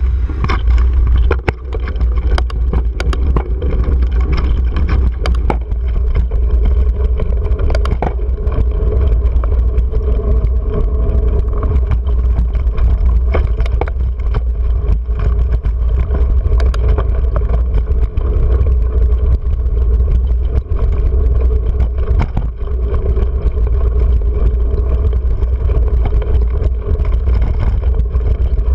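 Mountain bike riding fast on a dirt track, heard from a GoPro mounted on the bike: a heavy, steady rumble of wind and vibration on the microphone, a faint tyre hum, and frequent rattling clicks from the bike over bumps.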